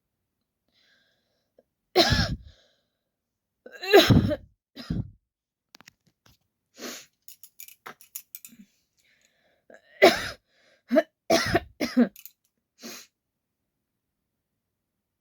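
A woman's real coughs from a cold with an irritated throat: single coughs about two and four seconds in, then a run of four or five coughs from about ten to thirteen seconds in.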